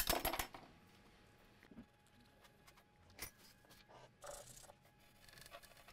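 Faint scattered clicks and short scraping sounds of small hand tools being handled and rubbed over a circuit board, with a brief scuffle at the start and a sharp click about three seconds in.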